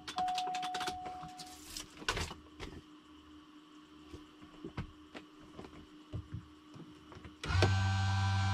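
Cockpit switches and controls clicking, with a steady high tone that stops about a second and a half in. About a second before the end, an electrical hum with a higher whine switches on abruptly and holds steady as the turboprop's systems are powered up before engine start.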